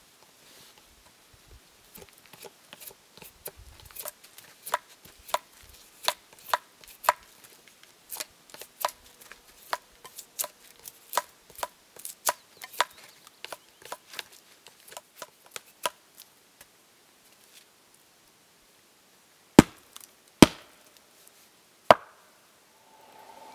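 A knife carving shavings off a wooden mallet's handle, each stroke a sharp click at about two a second. After a pause, three heavy wooden knocks as the mallet is struck against the stump chopping block.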